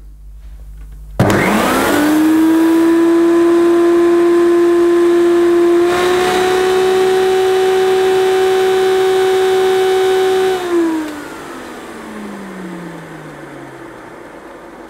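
Hoover Turbopower 2 upright vacuum cleaner switched on, its motor whining up to speed, with the hose end sealed on a suction gauge. A few seconds later the pitch steps up a little as boost mode raises the power. About ten seconds in it is switched off, and the whine falls away as the motor runs down.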